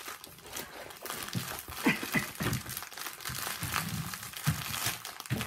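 Clear plastic packaging crinkling as it is handled on a tabletop, in irregular rustles and crackles.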